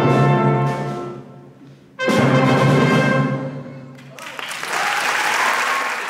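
A symphony orchestra with brass ends a piece: a held chord fades away, then a full final chord is struck about two seconds in and dies out. About four seconds in, audience applause begins.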